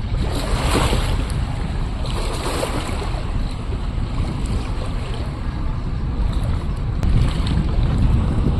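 Strong gusting wind buffeting the microphone with a heavy rumble, over choppy river waves that splash in several louder surges.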